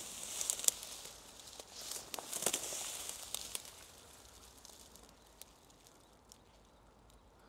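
Rustling and hissing with a few sharp clicks as someone moves slowly through thick weeds, strongest over the first three seconds or so, then dying down to a faint background.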